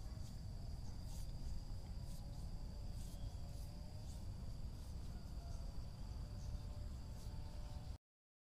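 Insects droning steadily at one high pitch over a low rumble, with a few faint ticks; it all cuts off suddenly near the end.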